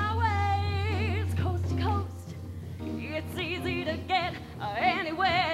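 Female soloist singing with a wide vibrato over a backing band, the notes held long. A steady low note underneath stops about two seconds in, leaving the voice more exposed.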